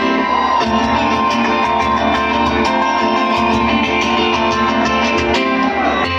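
A rock band playing live, with guitar prominent over a steady drum beat.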